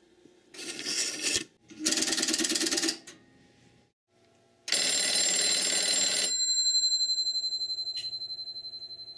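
A rotary telephone dial whirs and clicks as the final 0 is dialled. About four and a half seconds in, the called Bell System desk telephone's bell rings once, loud for about a second and a half, then dies away in a long fading ring. The ring comes from ringing current sent by the step-by-step connector once the call has reached the line.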